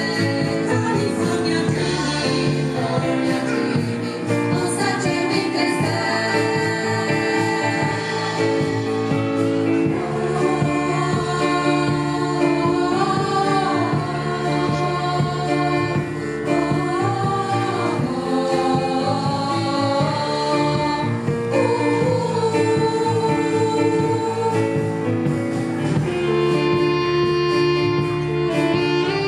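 Female vocal ensemble singing a song in harmony.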